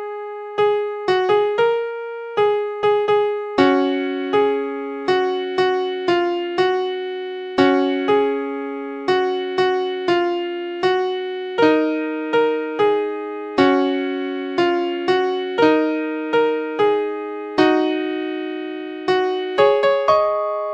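Background music on a software keyboard in an electric piano sound: a gentle, even melody of struck, decaying notes over held chords.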